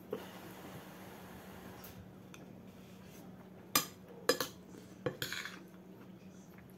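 Metal spoon clinking and scraping against a dinner plate while eating: a few sharp clinks, most of them between about four and five and a half seconds in, over a faint steady hum.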